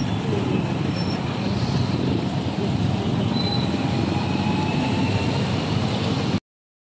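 Road traffic in a jam of motorcycles, cars and trucks: a steady rumble of engines that cuts off suddenly near the end.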